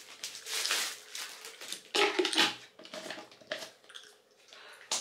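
Plastic wrapping crinkling as a clear plastic storage canister is pulled out of its bag, with several light knocks and clicks of the hard plastic canister being handled.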